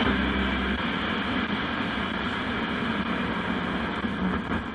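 AM car radio hissing with steady static and hum while tuned to a weak, marginal AM station, with no clear programme coming through.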